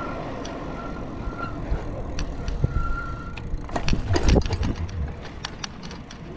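Magnum Metro X cruiser e-bike rolling and slowing, with tyre and wind rumble and a thin, on-and-off squeal from the brakes, which still squeak a little. About four seconds in there is a cluster of knocks and rattles as the bike rolls off the pavement onto grass, followed by scattered light clicks.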